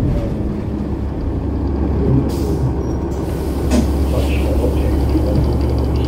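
Cummins ISL9 inline-six diesel in a New Flyer Xcelsior XD40 transit bus idling with a steady low drone, heard from behind at the rear engine. There is a short hiss a little over two seconds in.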